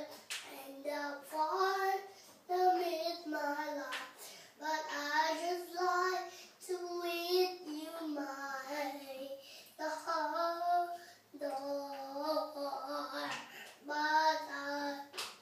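A young child singing to himself in short melodic phrases, with brief breaks for breath between them.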